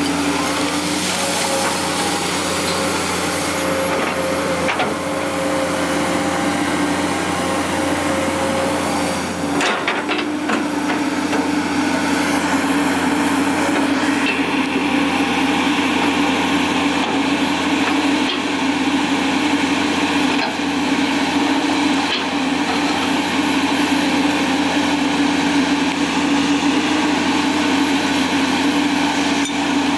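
Komatsu PC200 hydraulic excavator's diesel engine running steadily under load as the arm digs and dumps garbage, with a few sharp knocks about ten seconds in.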